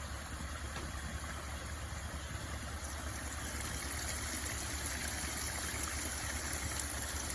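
Water pouring and splashing down a newly rebuilt backyard pond waterfall: a steady rushing hiss over a low rumble, getting slightly louder toward the end.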